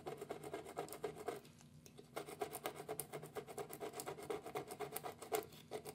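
Plastic razor blade scraping cured resin off a resin 3D printer's LCD screen in quick, short strokes, breaking the hardened resin up. The strokes stop briefly about a second and a half in.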